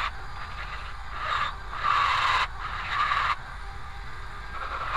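Electric drill spinning a rotary burr against a cast iron die plate, grinding a groove along a crack, in several short bursts of cutting with a steady whine under it. The cutting stops about two-thirds of the way through.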